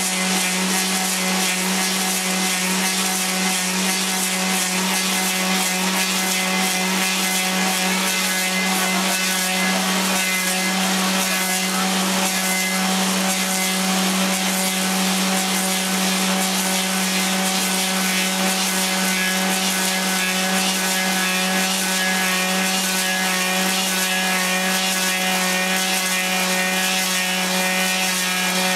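Clog-copying lathe running and carving a wooden clog: a steady motor hum with a strong low tone under the constant noise of the cutter shaving the wood.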